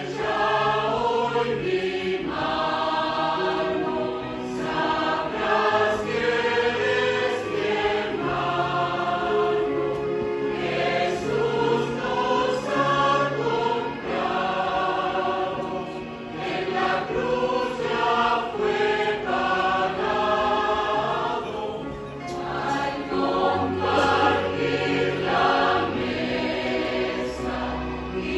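A mixed church choir of men and women singing a hymn, with short breaks between phrases.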